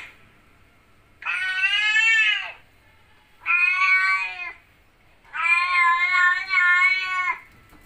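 Domestic cat meowing three times: long, drawn-out meows that sound like "I love you", the last the longest.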